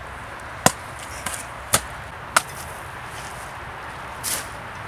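A wooden stick jabbed down onto thin river ice, cracking it to break off a slab: four sharp knocks in the first two and a half seconds, a short scraping sound a little after four seconds, and one more knock at the end.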